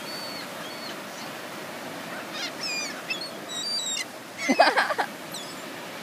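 Gulls calling: several thin, high cries, then a burst of loud squawks about four and a half seconds in, over a steady wash of surf.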